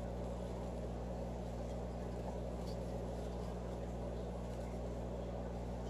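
Steady low hum with an even hiss over it, unchanging throughout: background machine or electrical noise in a small room.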